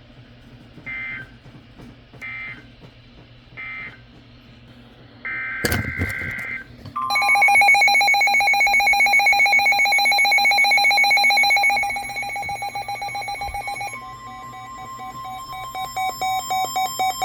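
Emergency Alert System signal tones: three short identical warbling digital data bursts, then a longer burst with a click. Then a loud, rapidly pulsing electronic alarm beep, followed by a steady high alert tone with beeps sounding over it.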